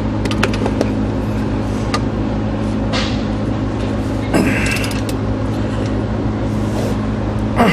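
A wrench turns a Cummins ISX connecting-rod cap bolt through its final 60-degree angle after torquing: a few light metallic clicks, then a short creak about four and a half seconds in. A steady low hum runs underneath.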